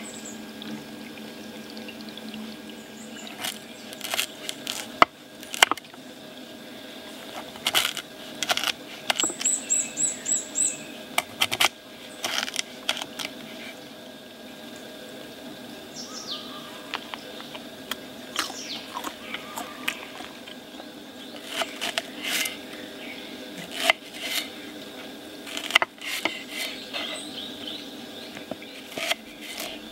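Folding knife cutting sweet potato and green onion on a wooden cutting board: crisp knife strokes and taps of the blade on the board, some single and some in quick runs.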